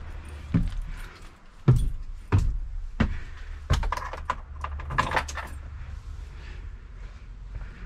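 Irregular sharp knocks and clicks, the loudest about two seconds in and a quick cluster near the middle: handling noises of someone stepping up into a school bus's driver's area and working the dash switches.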